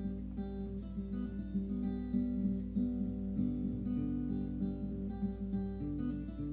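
Acoustic blues guitar picked in a steady rhythm, with bass notes under treble notes and no singing. It is played back from a vinyl record on a turntable.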